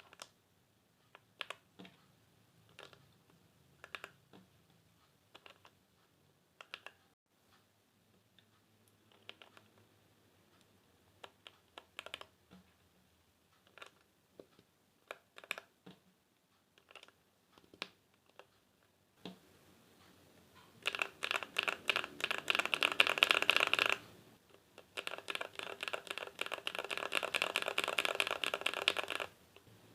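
Mechanical keyboard with stock yellow linear switches and cherry-profile keycaps: single keys pressed one at a time, each giving a short clack. Then come two runs of fast continuous typing, much louder, with a short gap between them.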